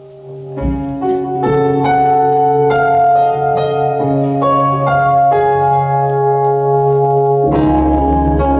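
Piano-voiced keyboard playing the instrumental introduction of a hymn. A soft held chord swells about half a second in into a melody of struck notes over sustained chords, and a deeper bass joins near the end.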